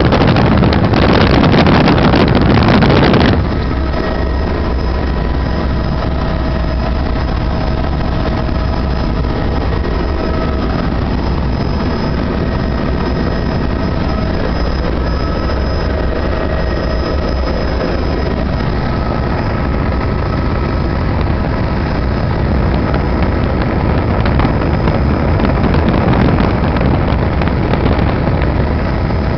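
Helicopter in flight heard from inside the cabin: a steady engine and rotor drone with several constant high whine tones. For the first three seconds a loud rushing wind noise covers it, then cuts off suddenly.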